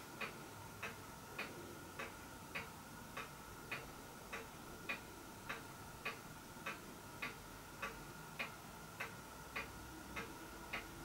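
Faint, even ticking, a little under two ticks a second, over a faint steady whine.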